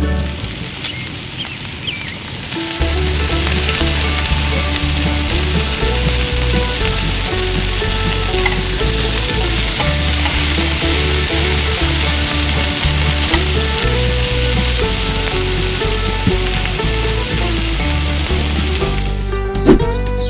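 Fish frying in hot oil, a loud steady sizzle that cuts out near the end, over background music with a melody and a pulsing bass.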